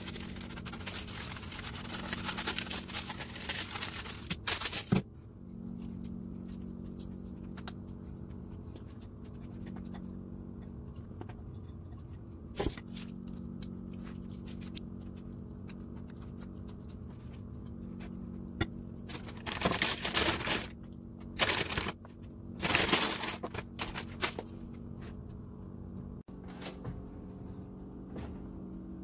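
Parchment paper crinkling as it is pressed into a round metal cake pan. After about five seconds it gives way to a steady low hum, with a few short scrapes of a spatula spreading thick batter in the pan.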